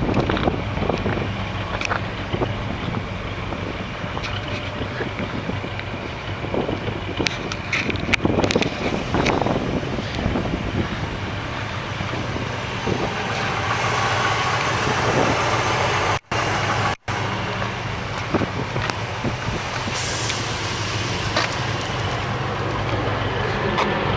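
Cadillac 500 cubic-inch V8 in a 1958 Chevrolet Apache pickup running steadily, with a low, even engine note. The sound cuts out twice for a split second about two-thirds of the way through.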